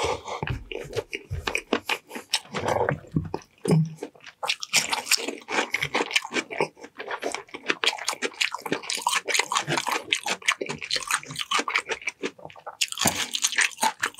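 Close-miked eating: irregular wet chewing, smacking and crunching of mouthfuls of food, with a brief pause near the end.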